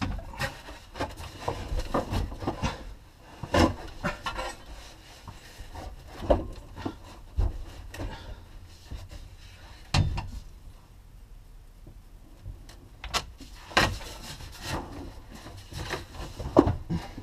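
Plastic fuel tank of a 2002 Ford Windstar knocking and scraping against the underbody as it is worked loose and lowered on a jack. Irregular knocks are scattered through, a few of them sharper.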